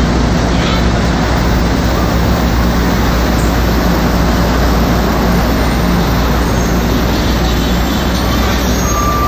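New York City Subway 7 train pulling out of an elevated station and rolling away along the tracks: a loud, steady rumble of wheels and motors on the elevated structure. A high steady tone comes in near the end.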